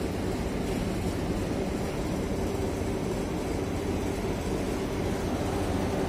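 PVC coil door-mat production-line machinery running: a steady mechanical drone with a continuous low hum.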